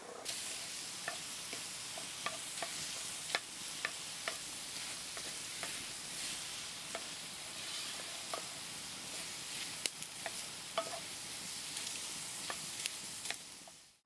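Diced apples sizzling in a black iron frying pan over a campfire, a steady hiss, while a wooden spatula stirs them with scattered taps and scrapes against the pan. The sound fades out just before the end.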